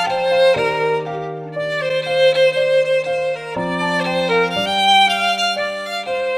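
Music: a violin plays a melody of held notes over sustained lower notes.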